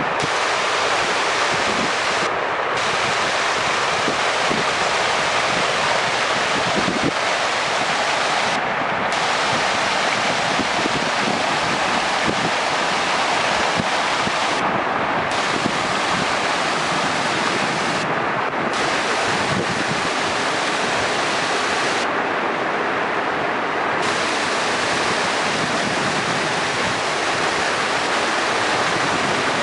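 Steady rushing of wind and water by the sea, with wind blowing across the microphone.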